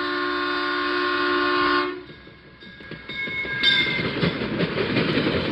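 Locomotive air horn sounding a held multi-note chord, cut off suddenly about two seconds in. Then comes the noise of rail cars rolling by, with clicking over the rails and brief high squeals.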